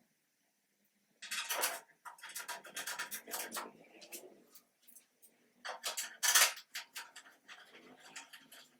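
Metal clattering and rattling as the jointer's belt guard is handled and fitted on: irregular clanks and scrapes in two runs, the loudest a sharp clank a little past the middle.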